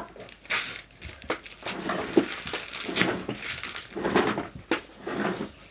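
Paper being handled and torn, irregular rustling bursts with a few sharp clicks.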